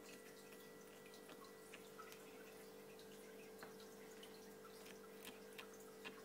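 Faint aquarium sound: a steady low hum of the tank's equipment, with scattered small drip-like clicks of water.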